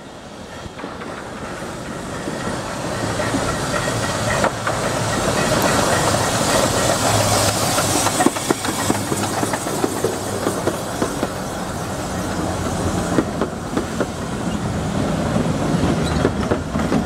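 Romney, Hythe & Dymchurch Railway No. 11 "Black Prince", a 1937 Krupp 4-6-2 miniature steam locomotive, running past along the platform with its coaches. Steam hisses and the wheels click over the rail joints, getting louder over the first few seconds as it draws near.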